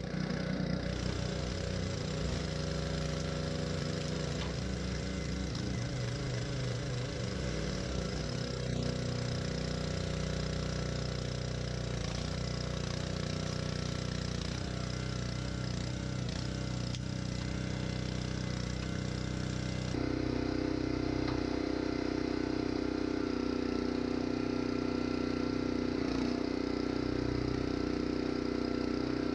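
Engine running steadily, with an abrupt change in its tone about two-thirds of the way through, after which it runs on a little louder.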